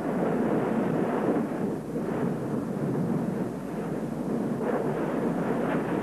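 An active volcano erupting: a steady, even rush of noise with no separate blasts.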